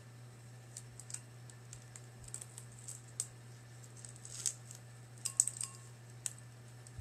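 Adhesive plastic stencil being peeled off a glazed ceramic bowl: scattered small clicks and crackles, the sharpest a little after five seconds in, over a steady low hum.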